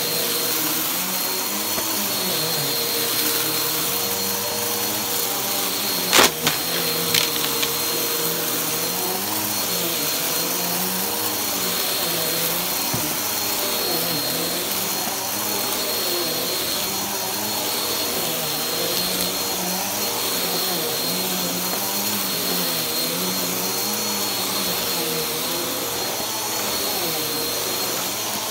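Upright bagless vacuum cleaner running steadily while pushed back and forth over carpet. Its hum wavers up and down in pitch with each stroke, and there is a steady high whine. Two sharp clacks come about six and seven seconds in.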